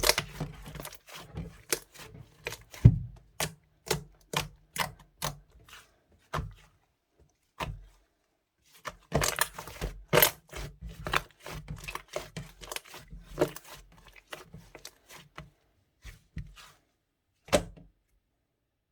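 Glossy clay-and-glue glitter slime being pressed and worked by hand, giving irregular sharp clicky pops and squishes that come in busy runs, with a short pause about eight seconds in.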